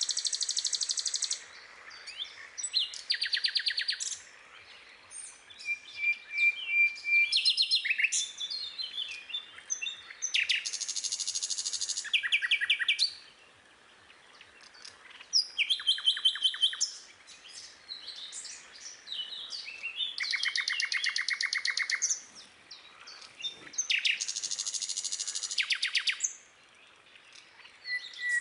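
A songbird singing: high-pitched phrases of fast trilled notes, repeated every few seconds with short pauses between.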